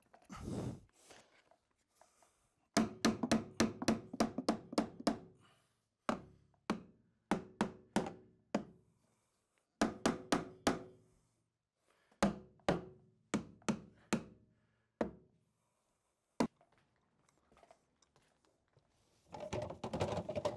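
Hammering on the overhead pipework and joists: sharp knocks, each with a brief ring, in quick runs of several strikes, the fastest at about four a second.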